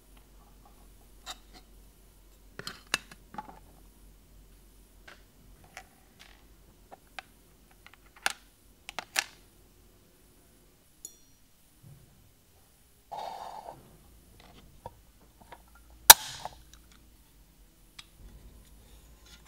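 Scattered small clicks, taps and clinks of pressed-tin and plastic toy boat parts being handled and set down. There is a brief scraping rustle about two-thirds of the way through, and a single sharp click, the loudest sound, a few seconds before the end.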